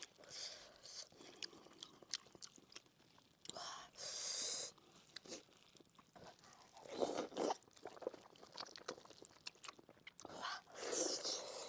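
Close-miked chewing and biting of fatty pork knuckle: wet smacking and many sharp click-like mouth sounds, with a few louder bursts of chewing.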